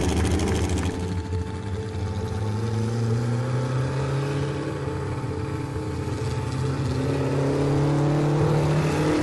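Formula SAE race car engine running as the car drives past and away, its pitch rising slowly through the second half.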